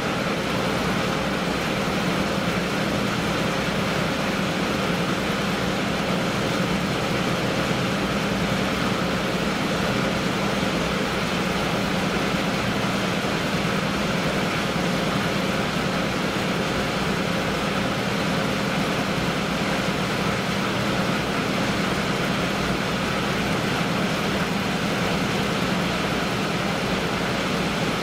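A coastal cargo ship's diesel engine running steadily as the ship manoeuvres in to berth: a continuous low drone with a faint steady hum and an even hiss over it.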